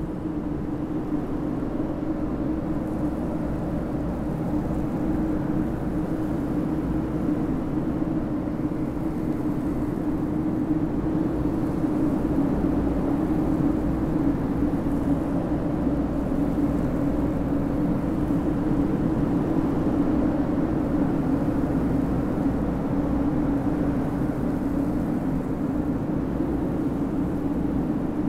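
Steady low rumbling drone with a humming band in it, swelling slightly towards the middle: an ambient sound-design passage of the film's soundtrack.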